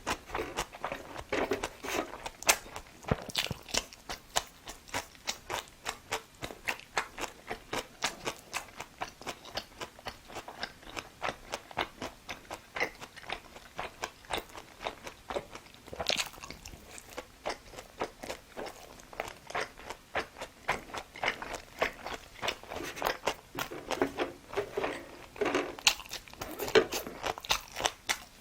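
A person chewing a mouthful of food close to the microphone: steady moist chewing clicks and light crunches, about two to three a second.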